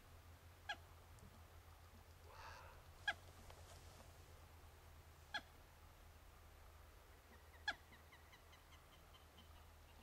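Plumbeous rail giving four short, sharp calls, spaced about two seconds apart.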